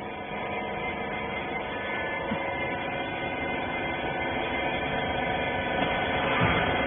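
Rag baler's hydraulic power unit running with a steady multi-tone hum, growing slightly louder toward the end.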